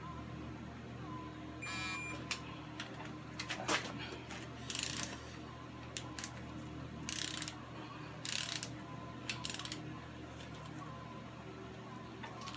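Ratchet and click-type torque wrench on the intake manifold bolts of a Chrysler 3.5 V6: several short bursts of ratcheting and a few sharp clicks as bolts are brought up to 250 inch-pounds.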